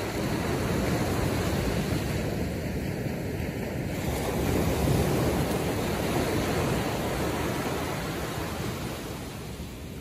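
Atlantic ocean surf: waves breaking and washing up the beach, swelling about halfway through and ebbing away near the end, with some wind rumbling on the microphone.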